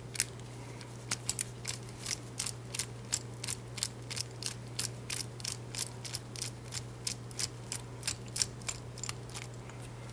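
Ratcheting screwdriver clicking steadily, about three clicks a second, as it turns out a small star-head screw in a padlock.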